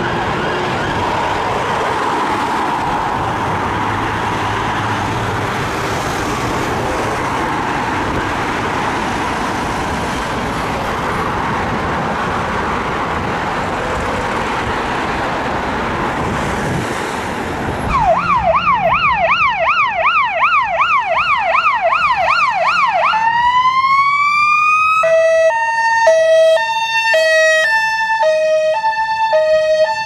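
A siren heard faintly under steady road traffic noise. About two-thirds of the way in, a close, loud siren from a Ford Focus estate ambulance rapid response car takes over: a fast yelp sweeping up and down, then a single rising wail, then a retro police-sounding tone stepping back and forth between two notes.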